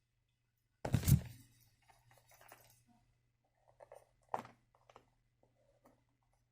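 Cardboard product packaging being handled and opened: a thump about a second in, light rustling, then a smaller knock a little past four seconds.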